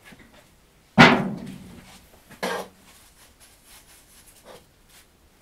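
A sharp knock about a second in that rings and fades over most of a second, followed by a shorter, softer knock a little over a second later, typical of a hard object set down or bumped while handling parts.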